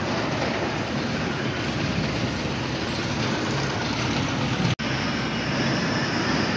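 Heavy diesel truck engines running steadily, with a brief break in the sound about three-quarters of the way through; after it, a 14-wheel closed-body container truck drives past close by.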